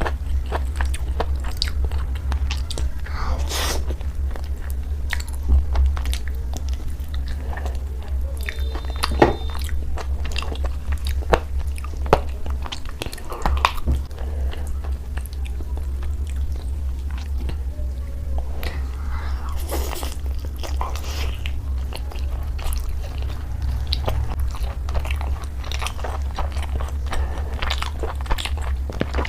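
Close-up eating sounds of a person chewing and biting into chicken curry, with many short crunchy clicks, over a steady low hum.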